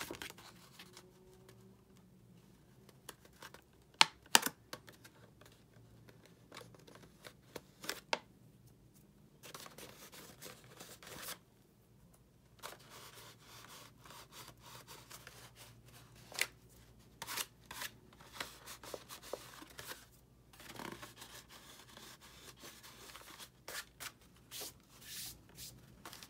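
Stiff 67 lb Neenah cardstock petals rustling and crinkling as they are pressed together and shaped by hand, with scattered sharp taps and clicks, the loudest two about four seconds in.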